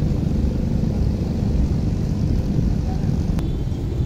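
Steady low rumble of outdoor port ambience, with a short sharp click about three and a half seconds in.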